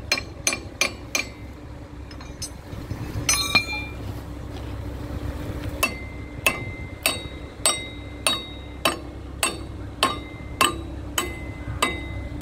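Hammer blows ringing on steel at an excavator bucket's linkage pin, driving the pin out to take the bucket off: a quick run of strikes at the start, a short pause, then steady blows a little more than once a second apart from about halfway through. The excavator's diesel engine runs underneath as a steady low hum.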